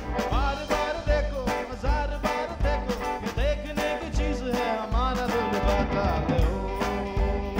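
A band's song with drums, bass and guitar over a steady beat, and a melody line sliding up and down above it.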